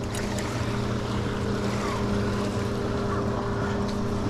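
Steady, unchanging drone of a motorboat engine running on the lake, over a constant hiss.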